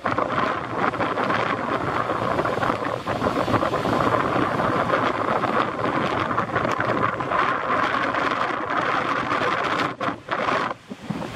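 Wind blowing across the microphone: a steady, gusting rush of noise that briefly drops away near the end.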